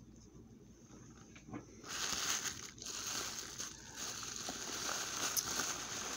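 Bubble wrap and shiny plastic wrapping crinkling and rustling as they are handled, starting about two seconds in after a few faint clicks.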